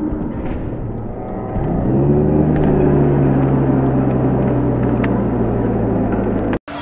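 Gymnasium crowd noise at a high school basketball game right after a dunk. About a second and a half in, a low, steady horn-like tone starts with a slight rise in pitch and is held for about five seconds. It cuts off suddenly near the end.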